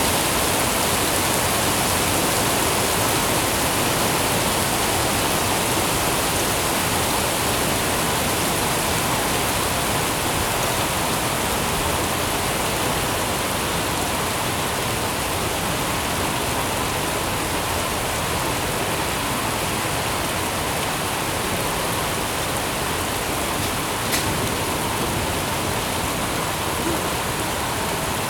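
Steady rain falling, an even hiss that does not let up, with one brief sharp click near the end.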